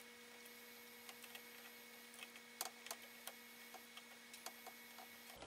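Near silence: a faint steady hum with a few faint, scattered small clicks.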